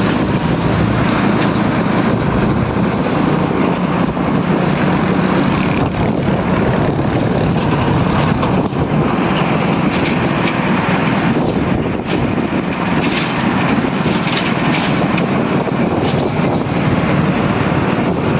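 Vehicle travelling at highway speed: a steady engine hum under a loud, even rush of wind and road noise.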